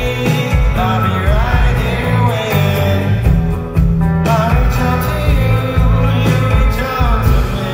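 Live rock band playing: a sung vocal melody over electric guitar, bass and drums.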